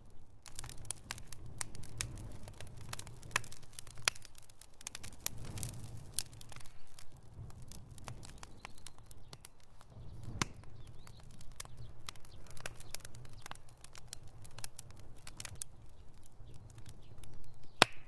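Wood bonfire of split logs crackling, with irregular sharp pops and snaps over a low steady rumble, and one loud pop near the end.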